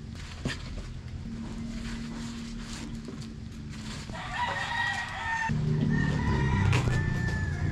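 A rooster crowing, one long call starting about four seconds in, with fainter crowing after it, over a low steady hum.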